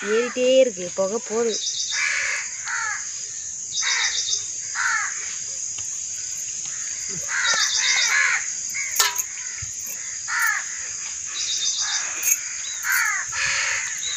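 Birds calling repeatedly, a short call every second or two, over a steady high-pitched insect drone with regular chirps.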